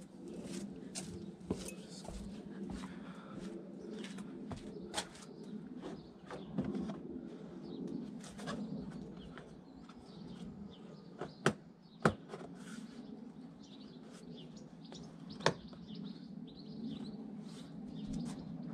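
Plastic clicks and knocks from a new wiper scuttle panel being pressed onto the car's scuttle, with three sharp loud snaps around the middle and later, over birds chirping.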